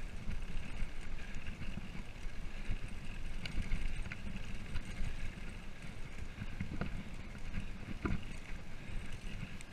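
Wind buffeting the microphone of a camera on a mountain bike coasting down a gravel road, a steady low rumble with a hiss above it. A few light clicks and rattles come through, spread across the middle of the stretch.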